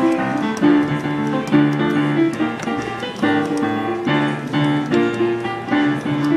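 A digital piano being played: a melody over chords, the notes struck one after another without a break.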